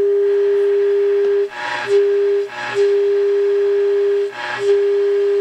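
Zenith AA5 tube radio's speaker playing the steady test tone from a signal generator modulating a 1600 kHz carrier: the set is receiving the alignment signal at the top of its dial. The tone drops out three times, each time briefly replaced by a burst of hiss.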